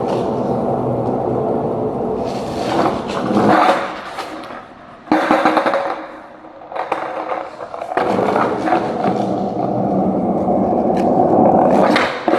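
Skateboard wheels rolling on wet pavement, a sharp clack of the board about five seconds in, then the board rolling again.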